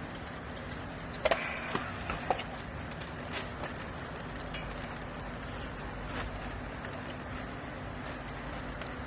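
Steady hum of a hydraulic baler's power unit running, with a few sharp knocks and clatters about one to two and a half seconds in.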